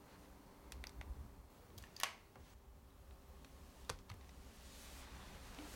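A few scattered, faint clicks of a laptop's keys being tapped, strongest about two and four seconds in, over a low room hum.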